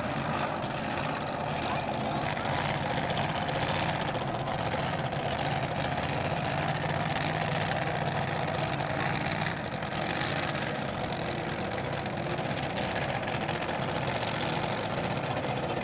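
Supercharged alcohol engine of a Top Alcohol Dragster idling steadily as the car rolls slowly, with no revving.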